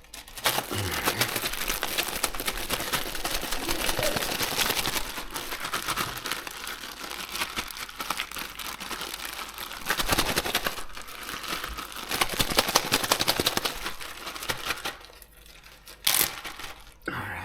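Plastic crinkling and rustling with many small clicks as fish pieces are handled and coated for breading. It dies down about 15 seconds in, with a brief sharp noise just after.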